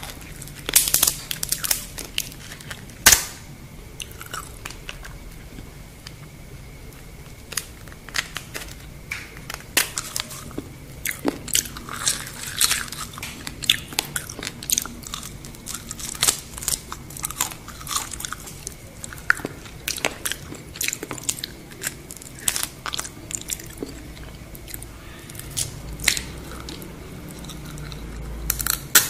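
Crisp crunching and chewing of deep-fried scorpions, a string of sharp brittle cracks as the shells are bitten and chewed, the loudest a sharp crack about three seconds in.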